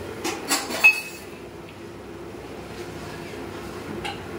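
Steel kitchen pots and utensils clattering: three quick knocks in the first second, the last one ringing briefly like metal, and another knock near the end, over a steady low hum.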